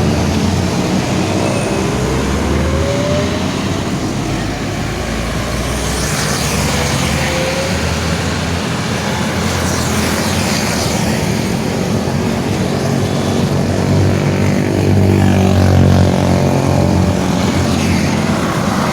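Heavy road traffic passing close by: diesel engines running with tyre and road noise, vehicles going past around six and ten seconds in.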